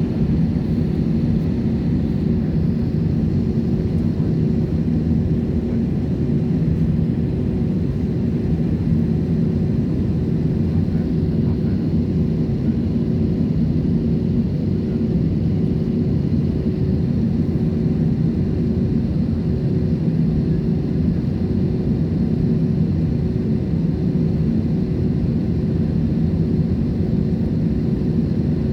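Steady cabin noise of an Airbus A320-family airliner in flight: a loud, even rumble of jet engines and airflow with a steady low hum over it.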